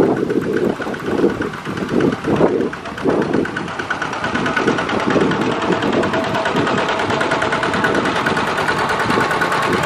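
Single-cylinder diesel engines of two-wheel walking tractors running under load as they pull loaded trailers, a rapid steady firing beat that is uneven for the first few seconds and then evens out.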